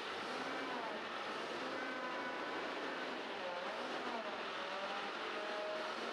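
Global street sweeper running and driving off, a steady mechanical noise with faint wavering squeaky tones over it.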